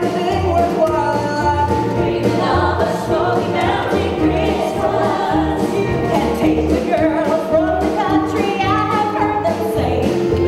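Live acoustic country band, with fiddle, acoustic guitar and keyboard over a steady bass line, playing a Christmas song with a lead vocal.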